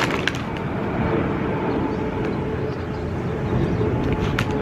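Steady low rumble of distant engine noise, with a faint steady hum and a couple of light clicks.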